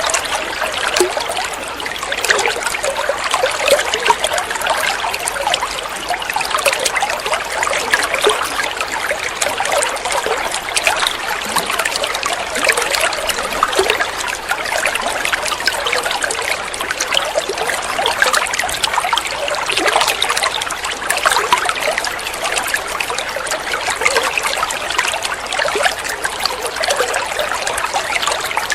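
Water running and trickling steadily, a continuous babble of small splashes like a small stream or a trickle over stones.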